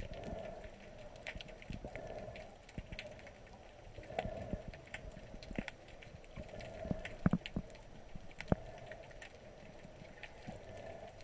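Underwater sound picked up by a submerged camera: irregular sharp clicks and crackles, a few louder ones past the middle, over a low swell that comes and goes about once a second.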